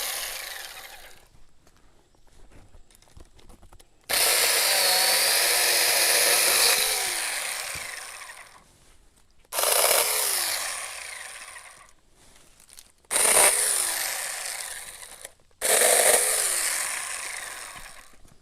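24-volt 4-inch cordless mini chainsaw cutting a small tree in repeated trigger pulls: one run of about four seconds, then three shorter runs. Each starts sharply and winds down in pitch as the electric motor coasts after the trigger is released.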